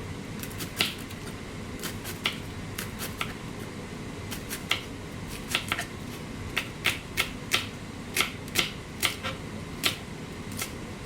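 Knife slicing red cabbage thin on a cutting board: irregular sharp taps of the blade striking the board, coming more often in the second half.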